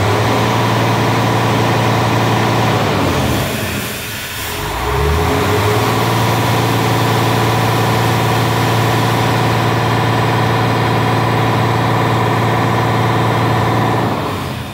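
Mercedes-Benz Axor truck diesel engine held at high revs while parked, eased off for about a second and revved up again, then let fall back near the end. It is being run hard to heat it quickly for a viscous fan clutch test, and the owner suspects the clutch is faulty.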